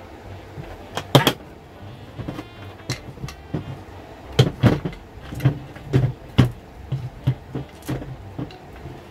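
Beads and a painted wooden tree cutout clacking and knocking against each other and the tabletop as they are handled and twine is pulled through: irregular sharp clicks and dull taps, busiest from about halfway on.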